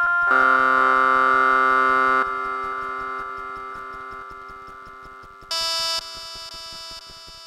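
Synthesizer notes from SunVox's Analog Generator playing its hand-drawn 'Dirty' waveform through an echo effect. The tone is rough and buzzy, rich in overtones, with a chiptune quality that comes from the drawn wave's very coarse resolution. One note is held for about two seconds and then fades away slowly, and a short, brighter note sounds near the end.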